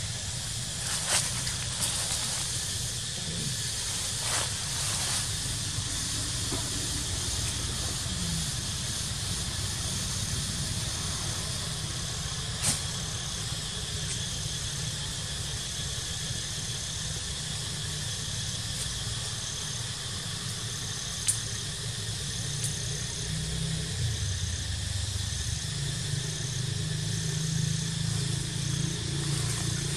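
Steady outdoor ambience: an even high hiss over a low rumble, with a short high chirp repeating every second or so through the second half and a few sharp clicks.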